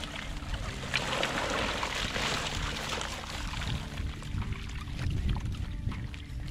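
Water pouring and trickling out of a raised cast net while a mass of small hassa (brown hoplo catfish) wriggle and flap in the mesh, giving a steady wet patter with many small ticks.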